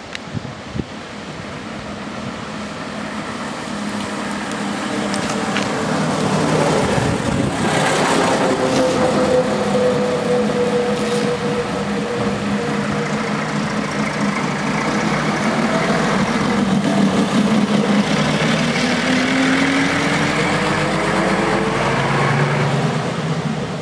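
Ikarus 260 city bus's Raba-MAN D2156 six-cylinder diesel running as the bus comes closer and grows louder. Its pitch falls as it eases off, then climbs again as it pulls away under power near the end.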